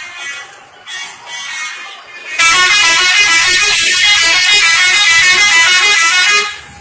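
Bus 'telolet' horn, a set of tuned air horns playing a rapid multi-note tune. It starts suddenly and very loud about two and a half seconds in, runs for about four seconds and stops near the end, after fainter tones at the start.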